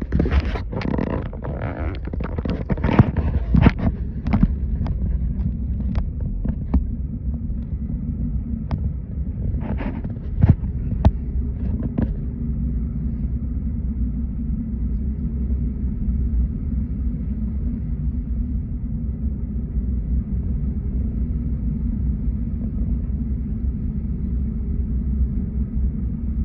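Car driving, a steady low rumble of engine and road noise. A quick run of sharp clicks and knocks comes in the first few seconds, and a few more about ten to twelve seconds in.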